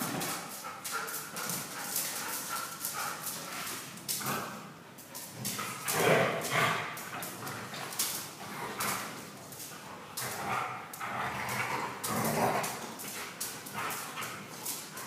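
Three huskies playing rough: repeated dog vocalizations in play, loudest about six seconds in, over a steady patter of claws clicking and scrabbling on a tiled floor.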